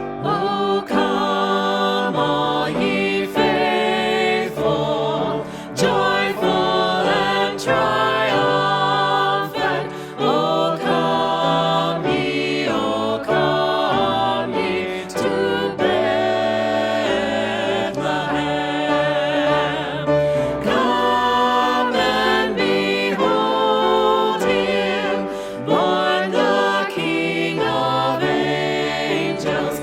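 A choir singing over steady instrumental accompaniment, the voices held with vibrato.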